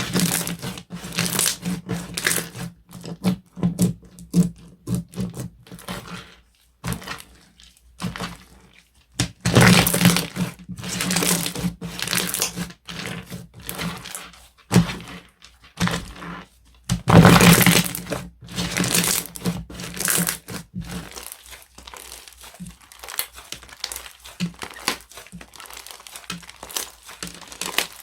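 Slime being squeezed and pressed by hand, making irregular crackling and crunching sounds, loudest in two stretches in the middle and softer near the end.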